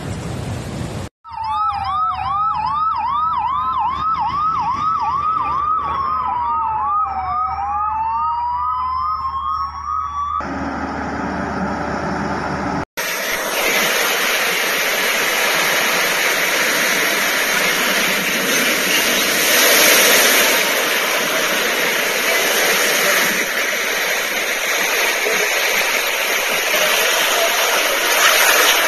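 An electronic siren sounds for about nine seconds, a fast repeating yelp over a slower wail that rises and falls, then stops. After a brief cut, a steady loud rush of wind and storm-surge waves washes through a flooded coastal street.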